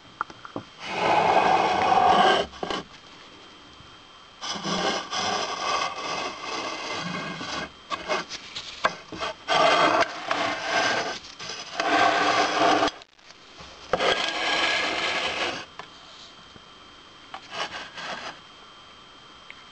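Handling noise: rubbing and scraping in several bursts of one to three seconds, followed by a few light knocks near the end.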